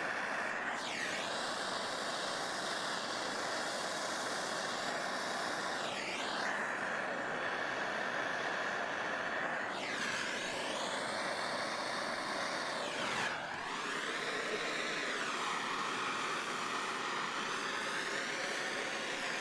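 Plumber's gas torch burning with a steady rushing hiss while heating a copper pipe joint into a brass elbow to sweat solder, its tone sweeping up and down every few seconds.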